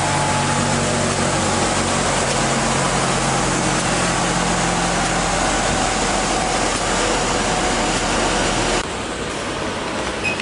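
Industrial wide-belt sanding machine running steadily as a poplar snowboard core is fed through it. The noise drops suddenly to a lower level about nine seconds in.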